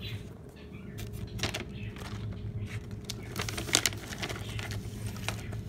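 Plastic cat-treat bag crinkling and the dry treats rattling as they are shaken out onto a tile floor: an irregular run of crackles and clicks, thickest about three and a half seconds in.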